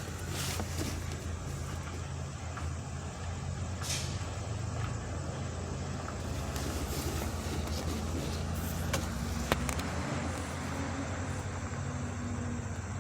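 Debris truck engine running steadily, with a few short sharp knocks, the sharpest about two-thirds of the way through.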